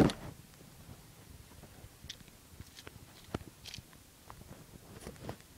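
Handling noise from a handheld phone: a loud bump at the start, then scattered faint rubs, clicks and crackles.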